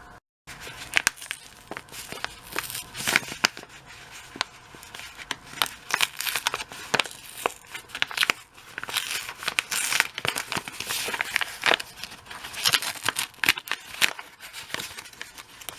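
A paper King Arthur flour bag crinkling and rustling as it is handled while flour is measured out, in quick irregular crackles.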